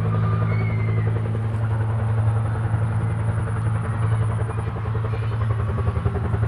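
A motor running steadily: a constant low hum with a fast, even throb.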